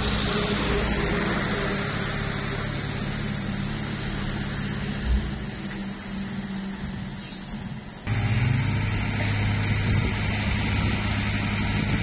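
Komatsu D21P bulldozer's diesel engine running under work, with a single knock about five seconds in. A little after eight seconds the sound changes abruptly to a louder, steadier engine note.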